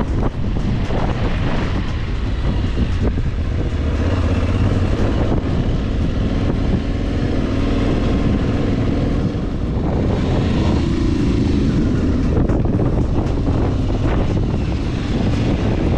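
Motorcycle engine running under way, its pitch rising and falling with the throttle, with wind buffeting the microphone.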